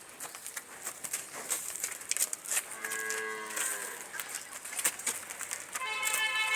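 A cow lowing once, a pitched call of about a second roughly three seconds in, over scattered clicks and rattles.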